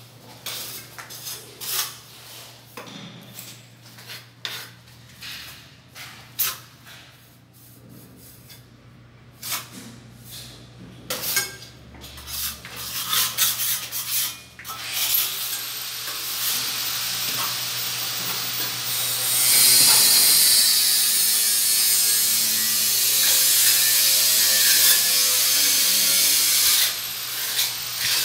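Steel trowel scraping mortar onto the tiled wall niche: a run of short, separate scrapes and taps. From about halfway a steady, loud rasping noise takes over, louder still in the later part, before it stops near the end.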